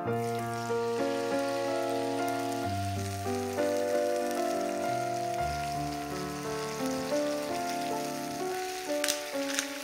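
Diced tomatoes sizzling as they land in hot olive oil with garlic in a frying pan, a steady hiss with sharper crackles near the end as they are stirred with a spatula. Background music plays throughout.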